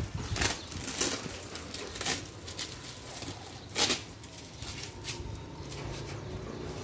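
Rustling and crinkling of a woven plastic sack being pulled open by hand, in irregular bursts, the loudest about four seconds in.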